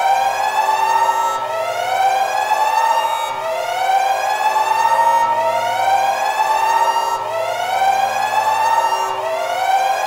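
Emergency siren wailing steadily, its pitch sweeping up and easing back in a cycle that repeats about every two seconds.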